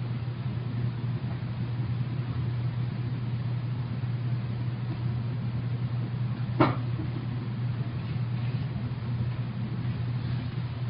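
Steady low hum with an even background hiss, and a single sharp knock a little past the middle.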